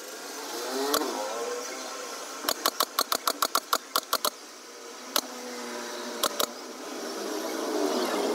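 Pneumatic staple gun firing staples through cloth into a plywood sofa frame, with sharp clicks: a single shot, then a rapid string of about a dozen, then a few more spaced out. Under the shots there is a steady mechanical hum.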